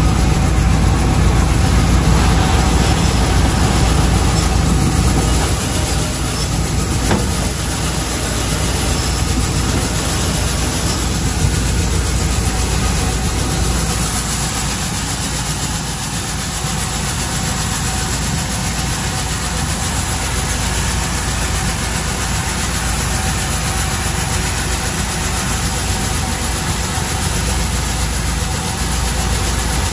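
Coin-operated rice milling machine running with a steady mechanical drone as it mills rice, the grains streaming down its chute into the bag.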